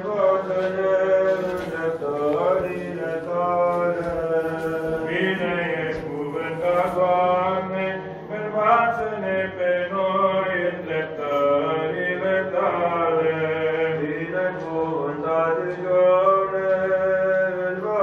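Orthodox church chant: voices singing a slow, gliding melody over a steady held low drone.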